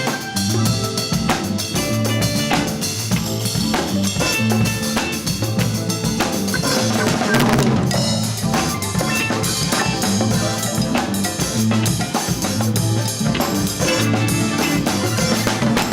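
Latin fusion band music: a busy drum kit with rimshots over a walking bass line.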